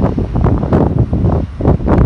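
Wind buffeting the microphone in loud, uneven gusts, with the low rumble of a landing jet airliner beneath it.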